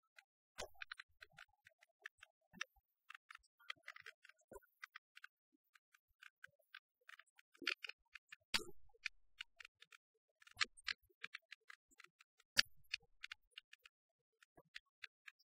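Irregular faint clicks and crackle, with two louder pops in the second half: the dust-and-scratch surface noise of a worn film print's soundtrack.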